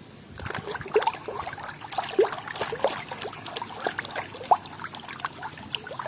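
Water splashing and dribbling as a toy is washed in a container of water, a busy run of quick watery plinks that starts about half a second in.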